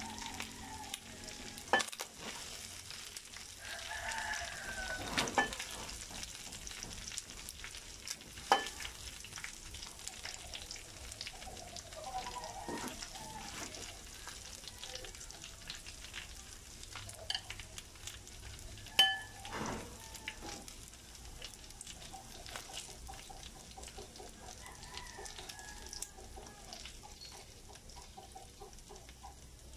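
Pork adobo in a frying pan, the heat just turned off, still faintly sizzling in its oil while a metal utensil scrapes and stirs the pieces out into a glass bowl. A few sharp clinks of the utensil on the pan and bowl stand out, the loudest about two-thirds of the way through.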